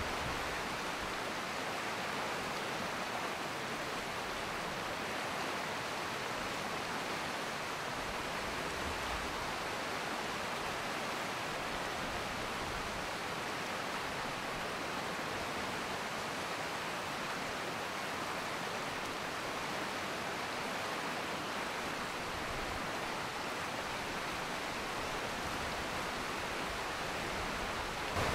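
Steady, even rush of a river's flowing water.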